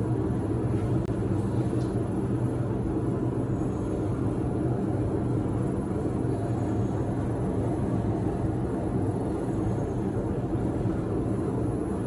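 Steady low rumble with a faint droning hum, unchanging throughout.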